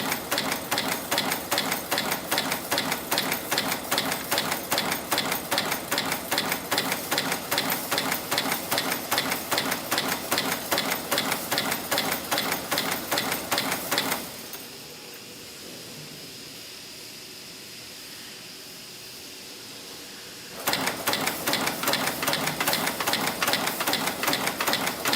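CNC wire-forming machine bending and stamping 5.3 mm wire into safety pins, running with a rapid, even clatter of repeated strokes. About fourteen seconds in, the strokes stop and a steady quieter hum remains for about six seconds. Then the clatter starts again.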